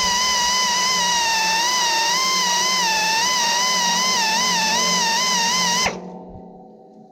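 Electric grinder running with a steady high whine that wavers slightly in pitch while it grinds a sawmill band-blade tooth; about six seconds in it is switched off and the sound dies away with a fading ring.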